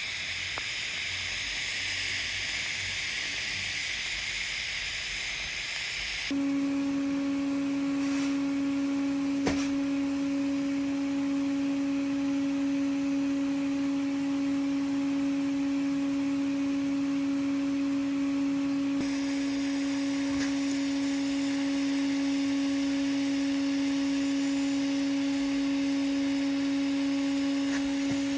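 TIG arc welding on carbon-steel pipe, a hot pass at 120 amps: the arc hisses evenly. About six seconds in the sound changes abruptly to a steady hum held at one pitch, with a fainter higher overtone.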